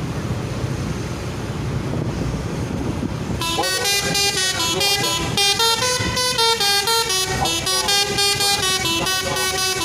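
A bus's engine rumbles; then, about three and a half seconds in, its telolet multi-tone horn starts playing a melody: a quick run of short notes stepping up and down in pitch.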